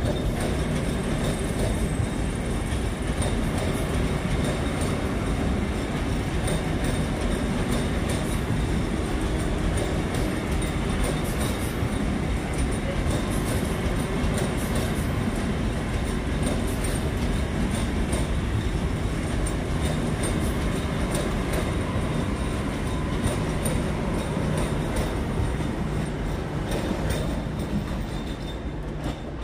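Vande Bharat Express electric train running past at close range: a steady rumble of wheels on rail with repeated sharp clicks from the wheels, easing off slightly near the end.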